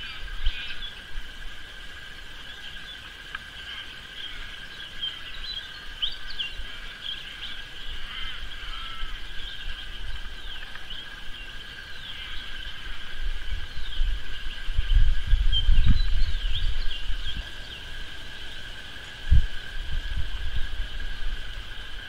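Birds chirping now and then over a steady high-pitched hum. A low rumble comes on the microphone about two-thirds of the way through, and a single low thump near the end.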